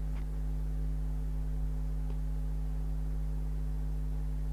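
Steady low electrical hum made of several fixed tones, running unchanged; two faint ticks, near the start and about two seconds in.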